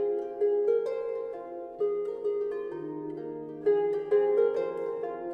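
Instrumental background music of plucked strings, harp-like, several notes sounding together in a slow flowing line. It begins suddenly at the very start.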